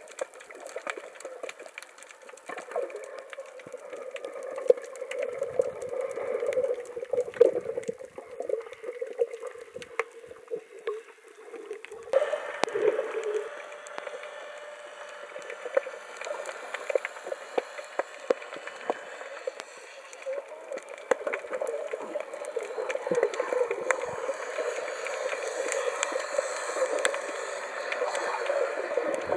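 Underwater audio from a camera housing: muffled rushing water with many small clicks and crackles, changing suddenly about twelve seconds in.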